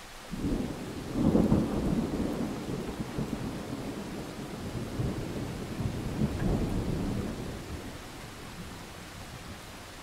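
A thunderclap rolling over steady rain. It breaks about half a second in and is loudest a second later. It swells again around six to seven seconds, then dies away and leaves the hiss of the rain.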